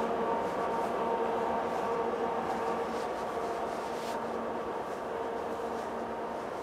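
Freight train moving away: the rear locomotive's diesel engine is a steady hum over wheel and rail noise, fading slowly as it recedes.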